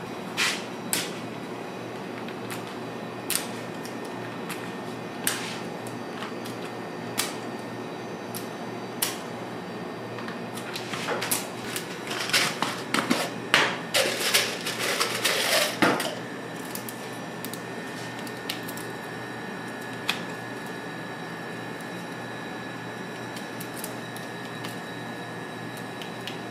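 Kitchen utensils and containers clicking and tapping on a work surface, about one sharp tap every two seconds, then several seconds of rapid clattering midway. After the clattering a faint steady high tone sits under the room hum.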